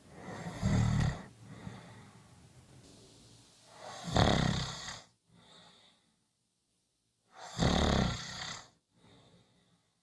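A person snoring: three loud snores about three and a half seconds apart, each followed by a quieter, shorter breath.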